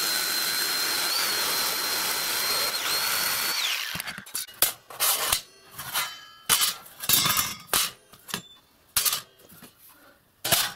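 Electric jigsaw with a metal-cutting blade running as it cuts through brass sheet: a steady whine over the rasp of the blade, stopping about four seconds in. After that come scattered clanks and rattles of thin brass sheets being picked up and handled.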